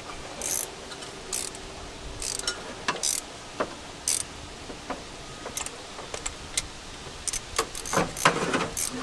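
Hand ratchet clicking in short runs, with metallic clinks of tools and parts, as the rebuilt carburetor is bolted down onto the engine. The clicks come about once a second at first and grow busier near the end.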